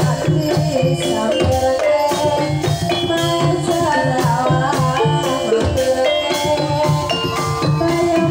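Javanese gamelan ensemble playing a Banyumasan tayub piece: kendang hand drums keep a steady beat under a wooden gambang xylophone struck with mallets and ringing bronze gongs and metallophones. A singing voice glides above the instruments in the middle.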